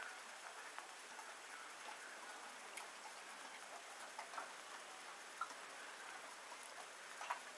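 A horse licking remedies from a hand and working its tongue and lips, a few faint wet clicks scattered over a low steady hiss.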